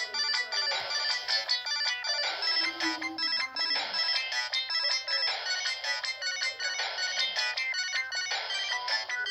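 Polyphonic ringtone playing through the small loudspeaker of a Samsung SGH-D410 mobile phone: a quick melody of many short notes, thin with almost no bass.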